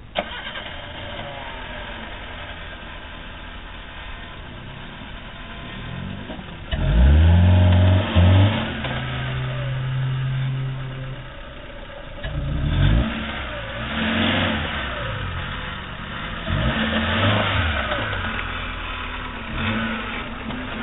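Suzuki Jimny's engine working under load as the 4x4 climbs a steep dirt bank, revving in surges: a sharp rise about a third of the way in that is held loud briefly, then several shorter bursts of revs that rise and fall.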